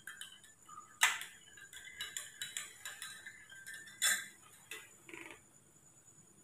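Metal spoon stirring milk in a glass mug, clinking against the glass now and then; the sharpest clink is about a second in.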